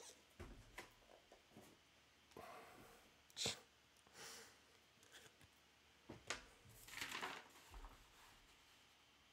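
Faint, scattered handling noise: short rustles, swishes and small taps of paper and trading cards being moved about, with the three clearest swishes about three and a half, six and seven seconds in.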